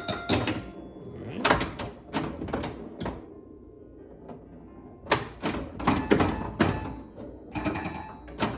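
Bally Strikes and Spares pinball machine in play: clusters of sharp mechanical clacks from the flippers, bumpers and coils, mixed with the machine's electronic sound-effect tones. There is a lull from about three and a half to five seconds in, then the clacks and tones pick up again.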